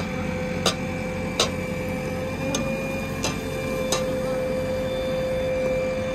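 JCB 3DX backhoe loader's diesel engine running under load with a steady whine over a low rumble while the backhoe lifts and dumps soil. A sharp click repeats about every three-quarters of a second, stopping about four seconds in.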